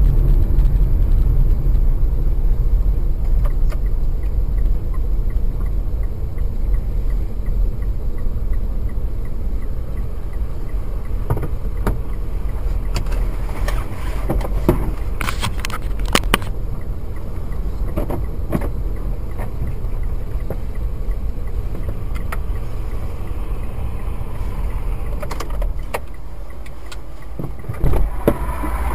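Car cabin noise picked up by a dash camera: low engine and road rumble as the car slows to a stop, fading to a quieter idle. Scattered sharp clicks and knocks come through the middle, and two short knocks sound near the end.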